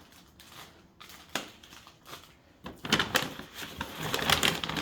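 Plastic grocery bag rustling and crinkling as produce is lifted out of it, with a few light knocks at first and dense crackling handling from a little under three seconds in.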